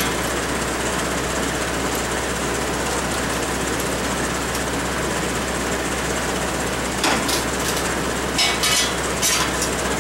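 Steady machine noise with a low hum, and a few short metallic clanks about seven and eight and a half seconds in as steel tubing is handled on a steel welding table.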